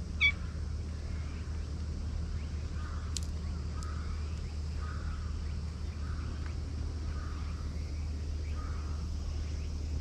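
A stray cat gives one brief, rising meow right at the start, over a steady low outdoor rumble. Faint calls follow, repeating about once a second.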